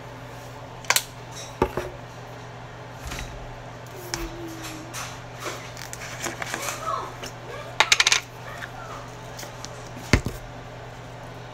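Sharp clinks and knocks of containers handled against the metal pot of an open rice cooker while ingredients are added, the loudest cluster about eight seconds in, over a steady low hum.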